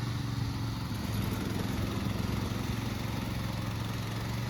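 Petrol engine of a 16 hp remote-control lawn mower running steadily, with a slight wavering in pitch a second or two in.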